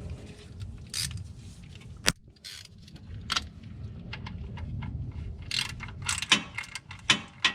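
Metal tool clatter as a socket wrench is picked up and fitted to the oil drain plug, then a run of quick ratchet clicks in the second half as the plug is run in.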